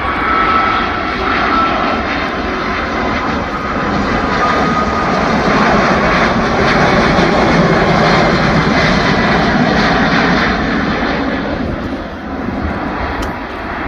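Airbus Beluga XL's two Rolls-Royce Trent 700 turbofans in a low flypast. The jet roar builds to its loudest about halfway through, then eases off as the aircraft passes.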